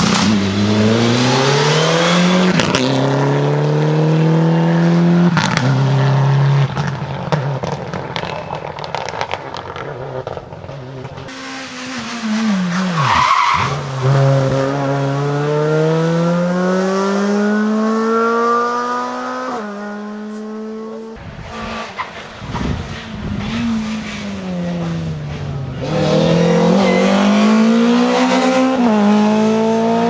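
Rally car engines at full throttle, one car after another: each engine climbs in pitch through the gears, with a short drop at every upshift. About thirteen seconds in, one car flashes past with a quick fall in pitch.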